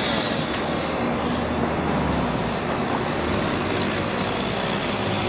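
A truck engine running steadily as a low hum under a constant rush of street noise.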